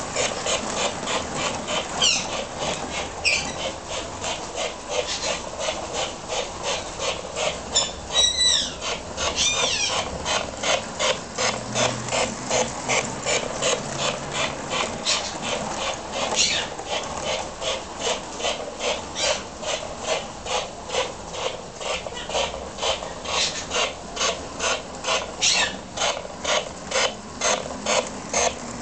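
Liberty Lines 600E Hudson model steam locomotive running, a steady rhythmic chuffing clatter of about two to three beats a second that quickens toward the end. A few brief high squeals break in, the longest about eight seconds in.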